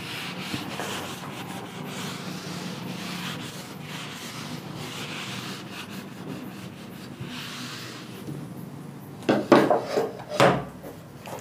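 A handheld duster wiping a whiteboard, a steady rubbing in repeated strokes. Near the end there are a few louder short scrapes and knocks.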